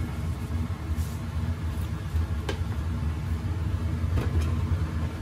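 A steady low machine rumble, with a few faint light clicks scattered through it.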